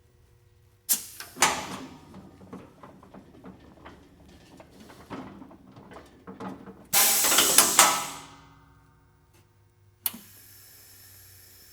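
Uhling HP3000 pneumatic case clamp cycling: a sudden burst of air about a second in, clunks and rattles as the clamp moves, then a loud blast of exhausting air that fades away. Near the end a sharp click is followed by a steady faint hiss.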